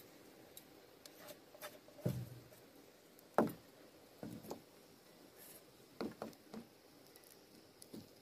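Scattered light taps, knocks and scrapes of a stick and pan against a canoe hull as melted tree sap is pressed into a hole to patch it, with the loudest knock about three and a half seconds in.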